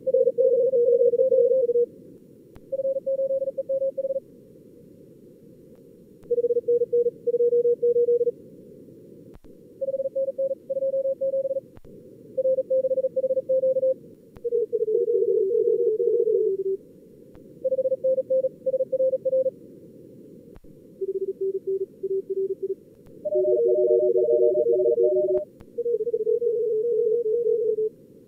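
Fast Morse code (CW) contest exchanges from a simulated two-radio contest setup: keyed tones of several different pitches, mostly around 400 to 550 Hz, sometimes two sending at once, over narrow-filtered receiver hiss that fills the short pauses between transmissions.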